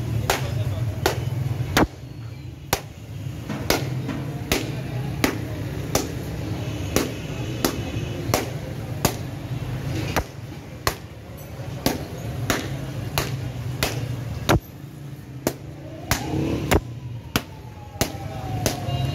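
A steady run of sharp knocks, like a knife chopping or a tool striking on a hard surface, about three every two seconds, over a low traffic hum.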